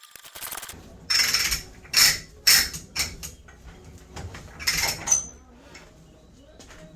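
Metal pipe-threading work: about five loud, irregular metallic scrapes and clanks in the first five seconds, then a few quieter clicks.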